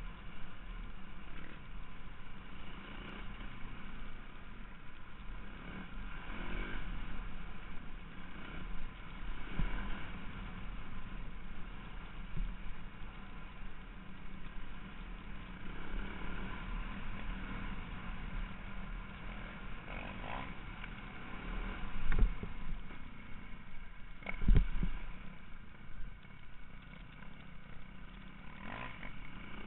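Single-cylinder four-stroke enduro motorcycle engine heard from the rider's helmet camera, revving up and falling back again and again as it is ridden. Two loud knocks come a couple of seconds apart about three-quarters of the way through.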